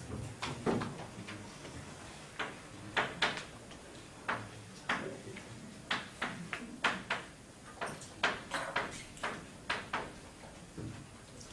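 Chalk writing on a blackboard: irregular sharp taps and short scrapes, about two or three a second, as the chalk strikes and drags across the board.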